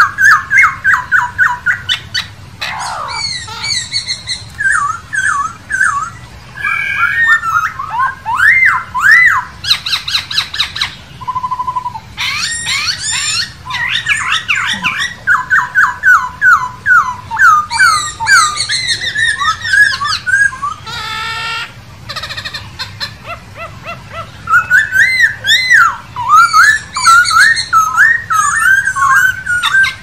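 Black-throated laughingthrush singing: long, varied runs of loud, quick whistled notes that sweep up and down, in phrases broken by short pauses.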